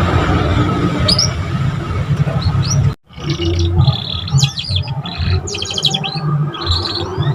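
Young canary, still learning to sing, giving short high chirps and quick rising trill notes, with a brief break about three seconds in. Loud uneven low-pitched background noise runs underneath.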